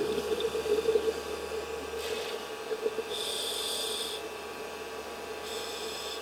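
Muffled underwater camera-housing sound: a steady hum, with two hissing, rasping breaths from a scuba regulator, about three and five and a half seconds in.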